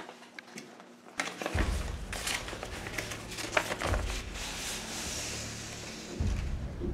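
Paper rustling and crackling as an envelope is opened and a printed sheet is pulled out and unfolded, starting about a second in, over a low steady rumble.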